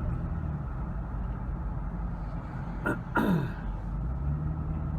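Steady low drone of a car's engine and road noise inside the cabin. About three seconds in, a short click, then a brief vocal sound that falls quickly in pitch, like a throat clear.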